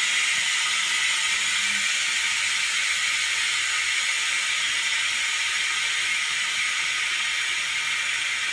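Compressed air venting from an autoclave LCD bubble remover's pressure chamber, released automatically at the end of its timed cycle: a steady hiss that slowly weakens as the pressure drops.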